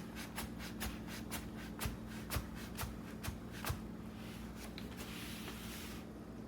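Shark S3501 steam pocket mop being pumped: the handle's pump action clicks about twice a second, ten times or so, then there is a short hiss about four seconds in. The owner says this mop no longer produces steam however many times it is pumped.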